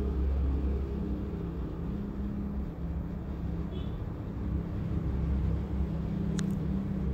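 Steady low rumble with a continuous low hum, and a single sharp click about six seconds in.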